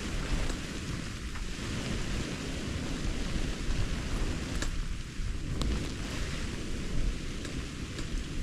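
Storm wind blowing hard in a heavy snowstorm: a steady hiss of wind-driven snow with low rumbling buffets, and a few faint sharp ticks.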